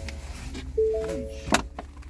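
Vehicle's three-tone warning chime repeating about every second and a half, the kind that sounds while a door is open. There is one sharp click about one and a half seconds in.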